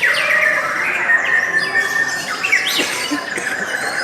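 Lovebirds chattering: a continuous, dense run of shrill chirps and squawks overlapping one another.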